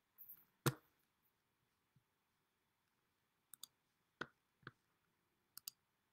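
A few short, sharp clicks in a quiet small room: one louder click about half a second in, then lighter clicks, several in quick pairs, near the end.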